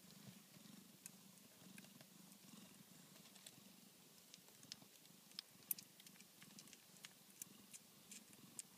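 Tonkinese mother cat purring faintly and steadily while nursing her newborn kittens, with scattered small clicks over the purr, the sharpest just before six seconds in.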